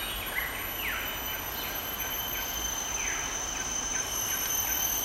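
Forest insect chorus: several insects drone steadily at high pitches, with short, buzzy calls that fall in pitch and repeat irregularly, roughly once a second.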